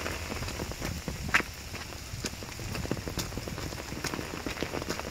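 Rain falling, with many scattered drops ticking close by, one sharper tick about a second and a half in, and footsteps on a wet dirt trail.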